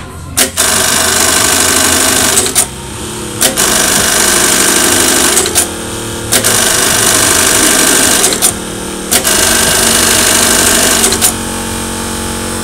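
GLK 1900 electronic bartack sewing machine stitching a programmed pattern, in four runs of about two seconds each, with a sharp click at the start and end of each run and short pauses between. A steady hum continues underneath and is left on its own after the last run.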